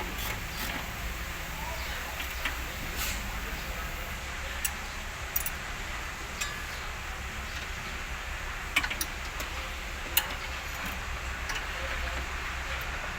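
Vehicle running with a low steady rumble and scattered light clicks and rattles.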